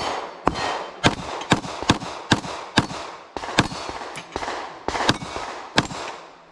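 A handgun firing a rapid string of about a dozen shots, roughly two a second with short gaps, each report followed by a brief echo, with faint ringing from the steel targets.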